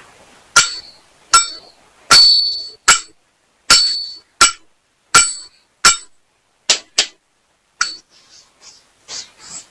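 A hard object is struck about fourteen times at uneven spacing. Each strike is a sharp clink with a short, high ring, and the strikes about two and four seconds in ring longest.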